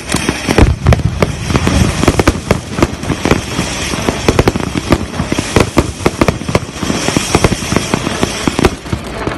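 Black Betties firework fountain from Lesli's Silvesterzauber range spraying sparks from the ground, with dense, continuous crackling and popping over a steady hiss.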